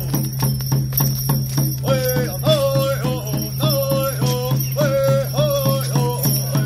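Song for a hoop dance: a steady, fast drumbeat with jingling, shaken percussion. A singer's voice comes back in about two seconds in and sings in short repeated phrases.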